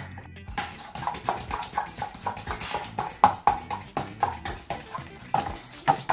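A spoon knocking and scraping against a stainless steel mixing bowl as a chicken marinade is stirred: quick repeated clinks, about three to four a second, each with a brief metallic ring.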